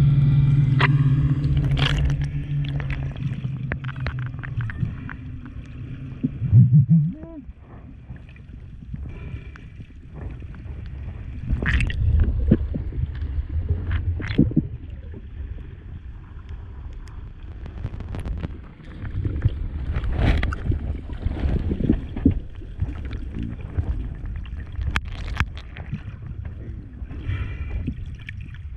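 Muffled underwater noise with scattered sharp clicks and knocks. A steady low hum with overtones fades out about five seconds in, and a short, loud rising call sounds about seven seconds in.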